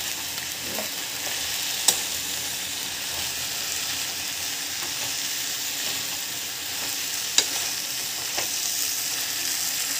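Mint, coriander and curry leaves with onion and tomato sizzling steadily in hot oil as they are stirred in the pan, with a couple of sharp taps of the stirring utensil against the pan.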